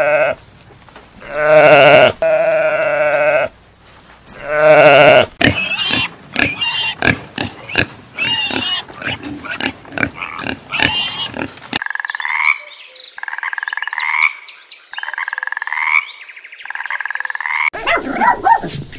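Sheep bleating twice in long, pitched calls, then pigs grunting and squealing in quick short bursts. After that come four separate rising calls from another animal, each about a second and a half long, and dogs start barking near the end.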